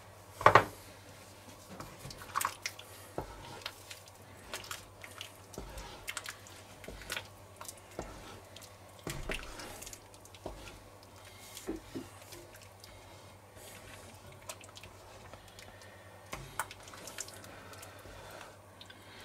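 Wooden spoon stirring a thick stew in a cast-iron Dutch oven: wet squelching and slopping with irregular small knocks and scrapes against the pot. A sharp knock about half a second in, over a faint steady hum.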